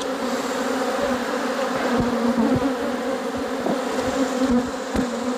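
Honey bees swarming in the air around an opened hive, a dense, steady buzzing from many bees at once. The colony is agitated and defensive, stinging. A few short knocks sound about two seconds in, just after, and near the end.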